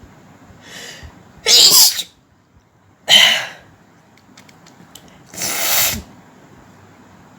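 A woman sneezing several times: a short breath in, then three loud sneezes about two seconds apart, the middle one sharp and short.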